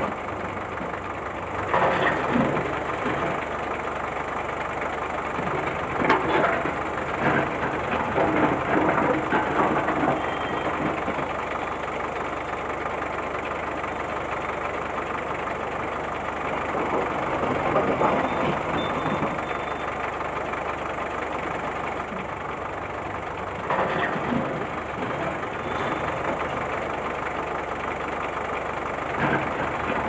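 Remote-control toy road roller driving over loose gravel chips: a steady rumbling crunch that swells louder several times as it rolls.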